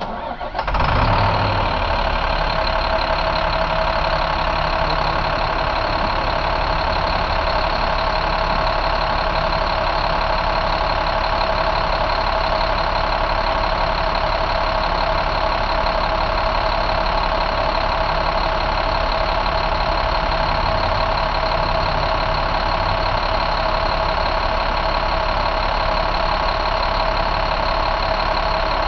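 2012 International MaxxForce DT inline-six turbo diesel idling steadily in the truck's engine bay.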